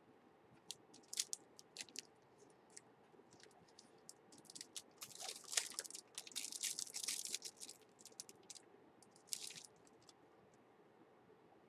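Crinkling plastic packaging and small clicks from a makeup brush set and its case being handled and unwrapped. The crinkling comes in scattered ticks, grows dense in the middle, and has one more short burst near the end.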